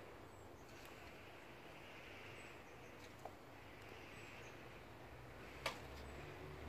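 Near silence: faint steady background hiss with soft recurring swells, a faint tick about three seconds in and a single sharp click about five and a half seconds in.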